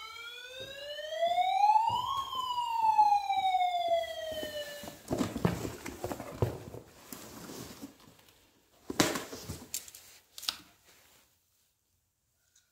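Electronic alert tone from a ghost-hunting sensor device, sliding up in pitch for about two seconds and back down over about three, like a siren sweep. Then comes irregular rustling handling noise with two sharp clacks.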